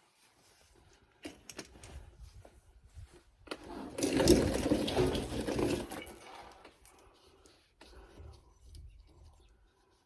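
Metal clicks and clinks of hand tools and bolts being started on the sway-bar bushing brackets, with a loud rapid rattle lasting about two seconds, starting about four seconds in.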